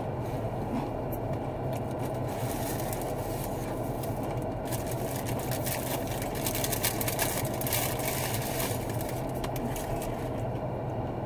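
Steady low hum of a parked car idling. Paper food wrapper rustling and crinkling from about four to nine seconds in.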